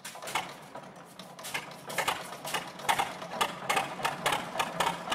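Saunderson Universal Model G's two-cylinder petrol/paraffin engine idling with a slow, even exhaust beat, about three beats a second.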